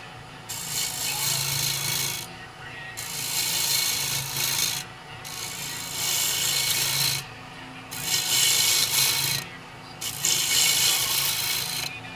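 Turning tool cutting a spinning cherry bowl on a wood lathe, in about five passes of a couple of seconds each with short pauses between them, over the steady hum of the lathe.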